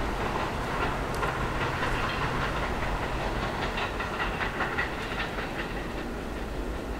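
Staten Island Railway train of St. Louis Car Company R44 cars running along the track, its wheels clicking over rail joints above a steady rumble that slowly fades.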